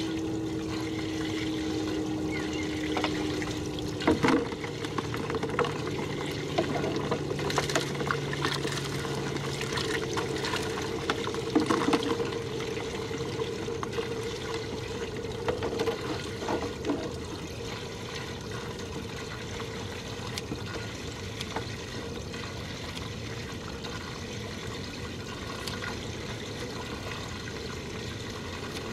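Water trickling and sloshing around a small fishing boat's hull, with a few knocks and clatters of gear being handled on deck. A faint steady hum runs through roughly the first ten seconds.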